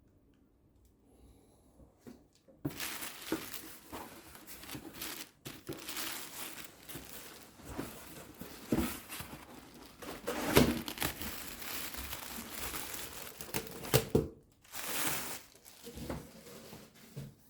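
Shoe packaging being handled: wrapping crinkling and rustling almost without a break, starting after about two and a half seconds, with a few louder crackles around the middle and another short burst near the end.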